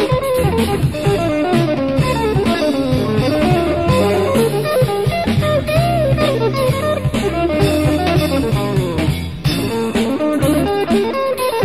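Live jazz band playing, led by a hollow-body electric guitar running quick melodic lines with bent notes, over electric bass and drum kit.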